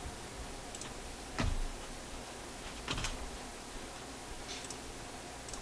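A few light clicks and knocks from handling, with a duller knock about a second and a half in, over a faint steady electrical hum.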